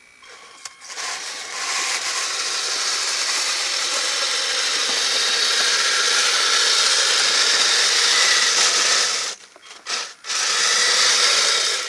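Kyosho Blizzard radio-controlled snowcat's electric drive and tracks running hard: a steady, high whirring that cuts out about nine seconds in, blips once, then starts again near the end.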